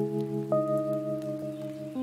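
Intro music of sustained, held chords, with a new higher note coming in about half a second in and the chord changing again near the end.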